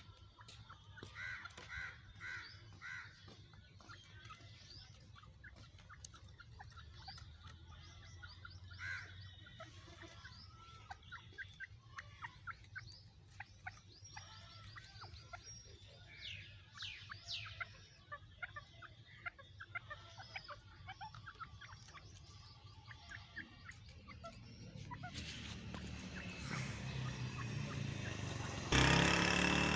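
Female francolin (teetar hen) calling: a short series of four notes about a second in, then scattered shorter calls and chirps, over a faint steady low hum. Near the end a rushing noise builds and turns suddenly loud.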